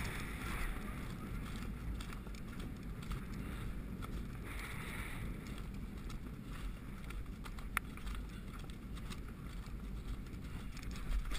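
Wind noise on a rider's head-mounted camera microphone as a horse canters across soft turf, with the horse's dull hoofbeats under a steady low rumble. A single sharp click sounds about eight seconds in.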